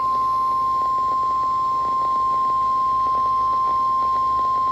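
NOAA Weather Radio warning alarm tone: a single steady 1050 Hz tone held without a break, signalling that a warning message is about to be broadcast.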